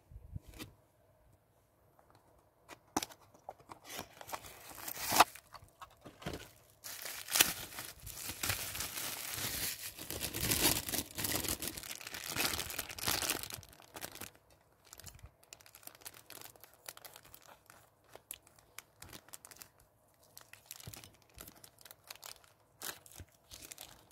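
Clear plastic packaging bag being torn open and crinkled by hand. Scattered crackles come first, then a dense run of tearing and rustling in the middle, then lighter crinkling.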